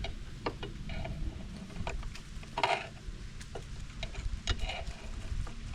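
Scattered light clicks and a short scrape of pliers working frayed strands of broken steel winch cable loose from the winch drum.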